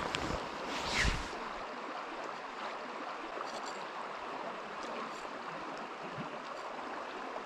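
Small river running steadily over a shallow gravel bed, a continuous even rush of water, with a couple of dull thumps in the first second or so.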